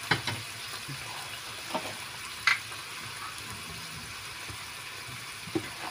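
Prawns and garlic sizzling steadily in oil in a frying pan, with a few short sharp clicks and pops over the hiss.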